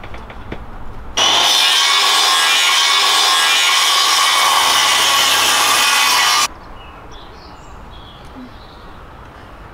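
Handheld circular saw cutting through a wooden board: a loud, steady cutting noise that starts suddenly about a second in and stops abruptly about five seconds later.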